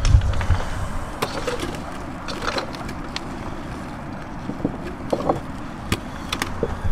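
Handling of a plastic bait bucket holding live crabs and snails. A few low bumps come right at the start, then scattered light clicks and knocks sound over a steady background hiss.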